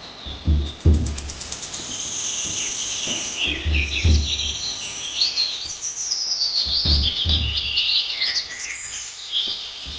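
Birds chirping and calling over one another, including a quick ticking trill in the first couple of seconds. Low dull thumps come in pairs three times.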